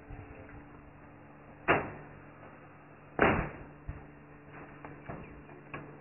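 Two sharp knocks on the steel rebar mesh and plank formwork of a roof slab, about a second and a half apart, then a few lighter clicks, over a faint steady hum.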